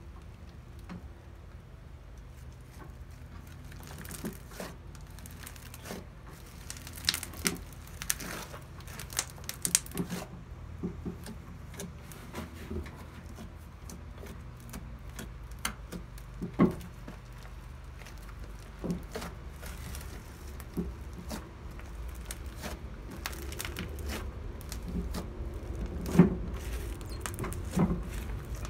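Mixed glitter slime being kneaded, poked and stretched by hand, giving off irregular wet clicks and pops as air pockets squeeze out, with a cluster of them about seven to ten seconds in and a few sharper single pops later.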